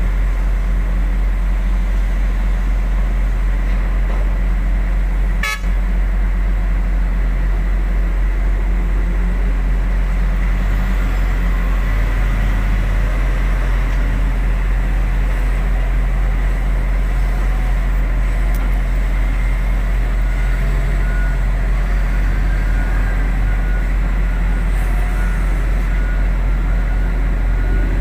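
Heavy diesel earthmoving machinery, excavator and dump truck engines, running steadily with a deep drone. A single sharp click comes about five and a half seconds in, and a faint, broken high tone sounds in the second half.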